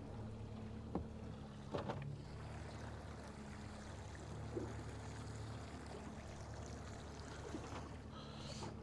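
Outboard motor running steadily at slow trolling speed, a low even hum, with water washing past the hull and a couple of light knocks about one and two seconds in.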